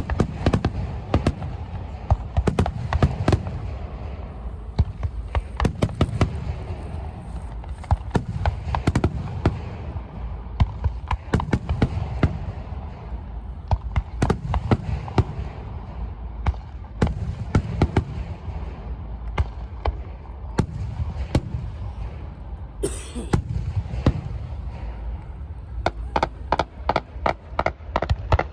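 Aerial fireworks bursting over and over: sharp bangs over a low booming rumble. Near the end they come in a fast crackling run.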